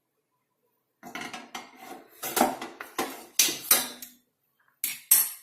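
Metal utensil scraping and knocking in a pan of dry-roasted turmeric pieces, with the hard pieces rattling. The clatter starts about a second in, with a brief pause shortly before the end.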